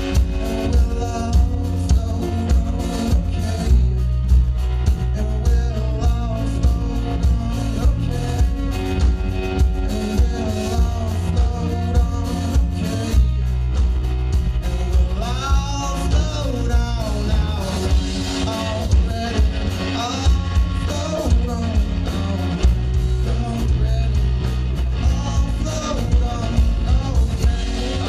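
Live rock band playing: drum kit keeping a steady beat under electric guitar and bass, with a voice singing over it.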